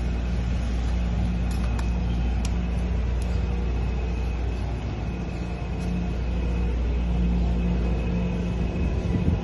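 Steady low rumble of street traffic, with a faint steady high whine and a few light clicks.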